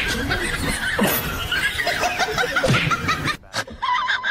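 A person laughing hard in high-pitched giggles, one after another, breaking off suddenly shortly before the end.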